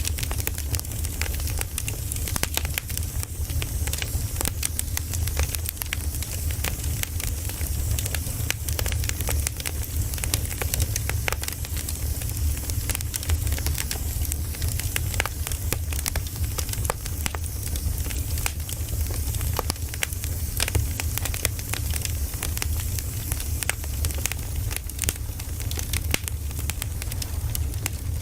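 Campfire of burning wood: a steady low rumble of the flames with dense, irregular crackling and popping.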